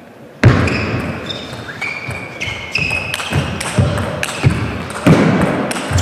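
Table tennis rally: the celluloid-type ball clicks off the rackets and table in a quick, fairly even rhythm, about two hits a second, with short high squeaks from the players' shoes on the court floor. It cuts in sharply about half a second in.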